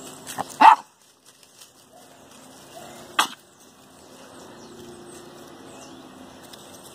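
Norfolk Terrier puppy giving two short barks while play-fighting, the first and louder about half a second in, the second about three seconds in.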